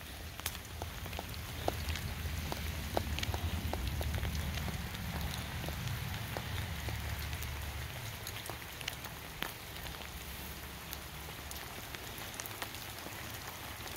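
Light rain pattering on wet surfaces, with scattered single drip ticks throughout and a low rumble over the first two-thirds.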